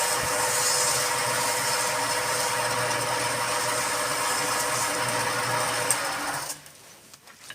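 Wood lathe running with a workpiece spinning, a steady mechanical noise with a low hum, which cuts off sharply about six and a half seconds in, leaving a few light clicks.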